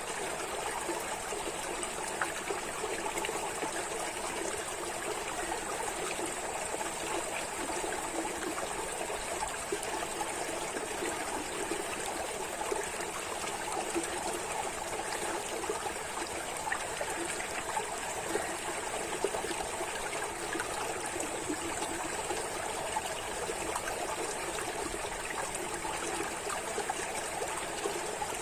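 Water flowing and trickling steadily, like a small stream running over stones, with small splashes and no break.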